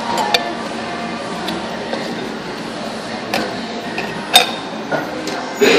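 Scattered sharp clinks and taps of tableware over steady restaurant background noise, the loudest about four seconds in.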